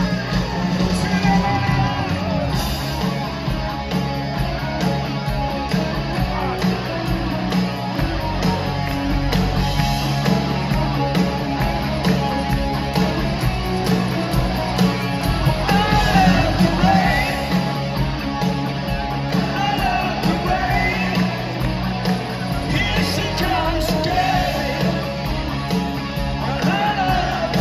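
Rock band playing live: a singer over electric guitar, keyboards and the rest of the band, heard loud and full from within the crowd.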